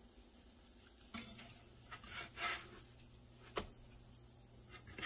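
Pancakes faintly sizzling in a nonstick skillet, with a few light scrapes and a sharp tap of a spatula against the pan about three and a half seconds in.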